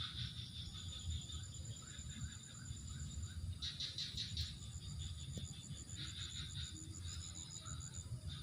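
Outdoor chorus of insects: a fast, steady high trill and rattling buzzes, with short repeated chirps from small birds and a low rumble of wind on the microphone.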